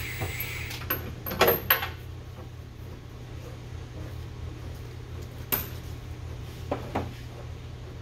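Metal hand tools and hardware clinking and clanking during bolt removal under a van: a few sharp clinks about a second and a half in, another in the middle and two near the end, over a steady low hum.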